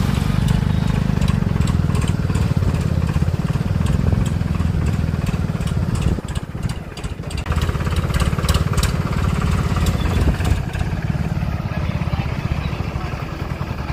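Tractor's diesel engine running steadily under way, its level dipping briefly about halfway through before picking back up.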